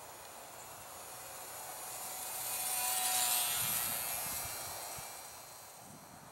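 E-flite UMX PT-17 Stearman ultra-micro biplane's small electric motor and propeller whining in flight as it makes a low pass. The whine builds to a peak about three seconds in and then fades away.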